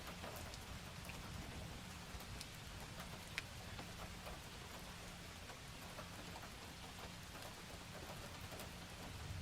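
Steady rain falling, with scattered small crackles and one sharper pop about three seconds in from a wood fire burning in a fireplace.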